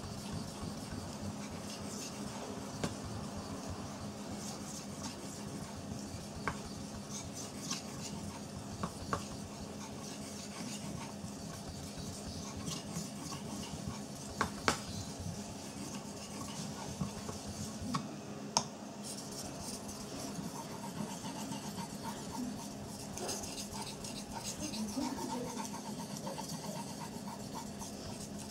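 Steel knife blade being stroked back and forth on a wet Chosera 400 waterstone: a continuous scraping rub of steel on stone, with a few sharp clicks. The edge is being honed at a slightly raised angle to form a micro bevel.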